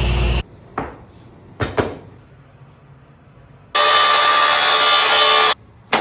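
A power tool working wood in two loud steady spells, one ending about half a second in and another of about two seconds near the end, each starting and stopping abruptly, with a few sharp wooden knocks in between.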